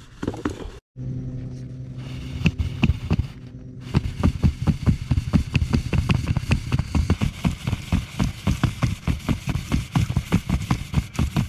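Braided fishing line being wound fast onto a Shimano Tekota 601HG levelwind reel off a spool spinning on a pencil held between the feet. A low hum with a few ticks gives way, about four seconds in, to a quick, even run of ticks from the cranking reel and the spinning spool.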